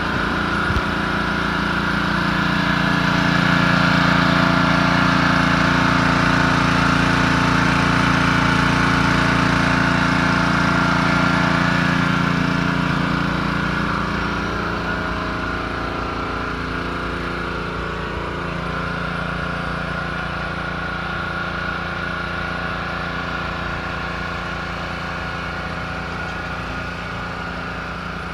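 Small petrol engines of a mobile detailing rig, a portable generator and a pressure-washer engine, running steadily. They are louder for the first half and ease a little lower after that.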